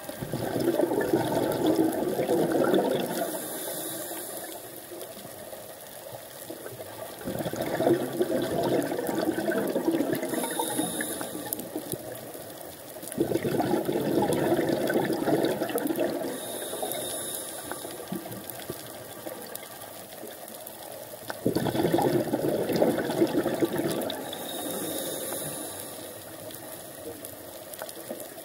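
Scuba diver breathing through a regulator underwater: a rush of exhaled bubbles four times, about every seven or eight seconds, with a short hiss of inhalation between them.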